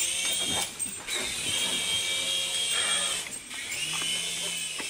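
Small electric motor and rotors of a toy remote-controlled helicopter whining in flight while it carries a chicken jerky dog treat, a load it struggles with. The whine's pitch shifts with the throttle and dips out briefly twice.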